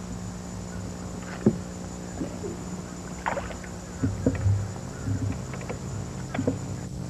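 Scattered light knocks and clicks from a bass boat and fishing tackle as an angler sets the hook on a biting bass, with a few low thumps around the hook set, over a steady low hum.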